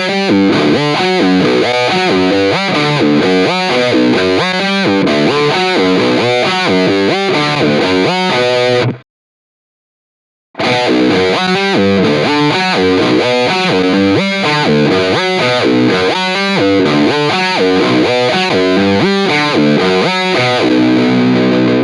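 Distorted electric guitar playing a single-note riff through a DigiTech Whammy pitch-shift pedal. It comes in two takes of about nine seconds each, with a short silence between them.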